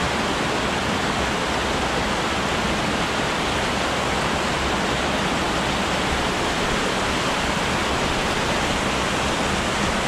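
A small mountain-stream waterfall pouring into a rocky pool: a steady, even rush of water.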